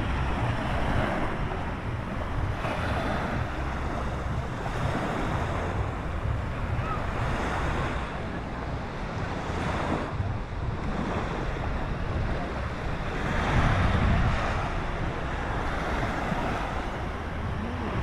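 Small sea waves washing onto the shore, swelling and fading every two to three seconds, with wind rumbling on the microphone.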